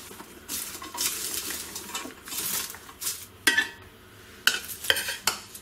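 Popcorn and crushed Kit Kat pieces being tossed and stirred in a stainless steel pot, a dry rustling in repeated swells. Then several sharp clinks of dishware over the last two seconds.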